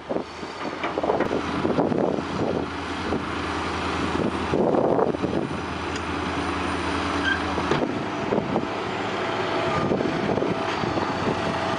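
Heavy diesel machinery, an excavator towing bulldozers out of a muddy hole, running steadily under load, with scattered knocks and clanks.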